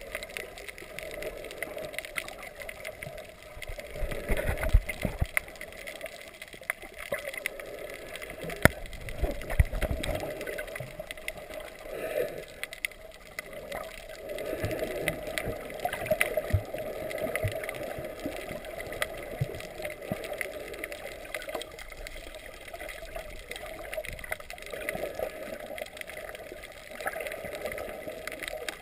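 Muffled underwater water noise picked up by a GoPro in its waterproof housing, with sloshing and gurgling, scattered sharp clicks, and a few heavier thumps about four and ten seconds in.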